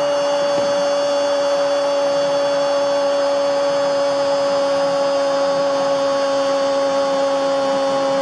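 A football commentator's long, held goal shout, 'goooool', sung out on one steady pitch over an even roar of the stadium crowd, celebrating a Peñarol penalty goal.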